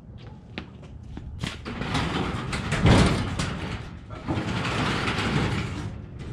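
Overhead garage door being raised by hand, rattling and rumbling along its tracks in two long swells, loudest about three seconds in, after a few sharp clicks.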